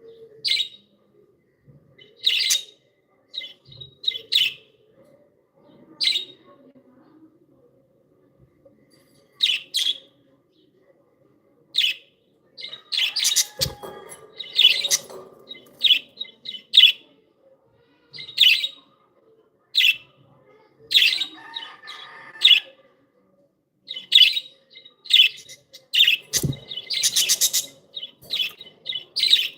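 Budgerigars chirping in short bursts, sparse at first with a brief lull, then busier and more overlapping in the second half. Two low thumps are heard in the busy stretch.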